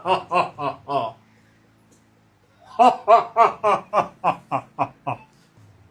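Loud, rhythmic laughter, "ha-ha-ha", in two bouts: a short one at the start and a longer one from about three seconds in that fades off.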